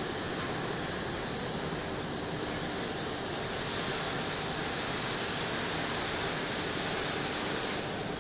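Steady workshop hiss with a faint low hum, at an even level throughout, with no distinct knocks or clanks.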